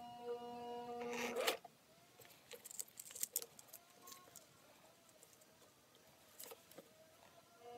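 Singer 500A sewing machine's motor humming steadily for about the first second and a half, then stopping. After that it is quiet, with faint rustles and light clicks of fabric being handled at the presser foot.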